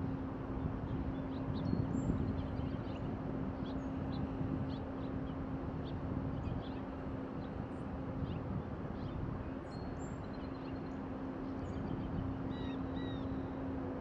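Scattered short, high chirps of small songbirds throughout, with a few more connected chirps near the end. Underneath runs a steady low hum and rumble, which is the loudest part.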